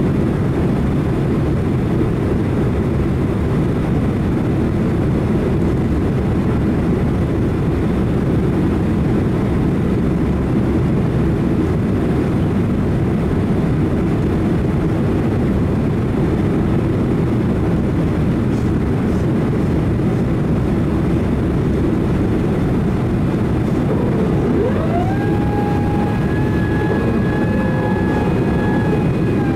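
Steady loud rumble of a Japan Airlines Boeing 767-300 jet, with a whine that rises in pitch about five seconds before the end and then holds steady.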